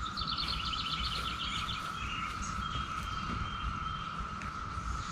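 Outdoor ambience: birds chirping in quick repeated trills, mostly in the first half, over a steady high tone and a low rumble of wind on the microphone.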